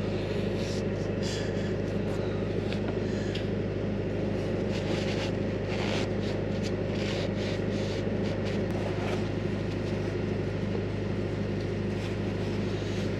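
Hitachi Zaxis 280 excavator's diesel engine running steadily, with a low hum and several steady tones over it. Light scratches and rustles come from hands working a rag around the hydraulic oil cooler pipe seal.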